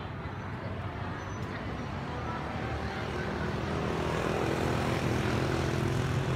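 Street traffic going by: motorbikes, a car and a light truck pass, their engine and tyre noise swelling steadily and loudest near the end.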